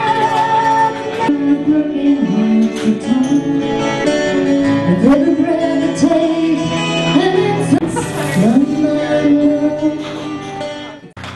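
A song with a singing voice over guitar accompaniment, cutting off abruptly just before the end.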